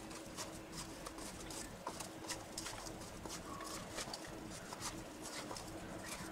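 Wooden spatula stirring spice-coated raw mango pieces in a bowl: irregular soft clicks and scrapes as the pieces knock against each other and the bowl, over a faint steady hum.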